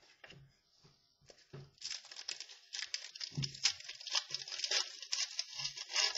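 Crinkling and rustling of plastic trading-card packaging being handled, with a few light taps. It starts faintly, then turns into a busy, crackly rustle full of sharp ticks from about two seconds in.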